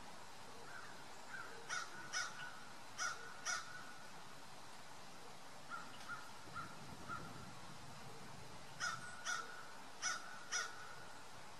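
A bird calling: three runs of about four short calls each, the middle run fainter.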